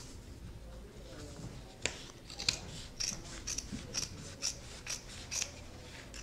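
Fabric scissors snipping through a thick denim seam allowance, a crisp cut about twice a second from about two seconds in: the waistband facing's seam allowance is being trimmed down to cut bulk at the waist.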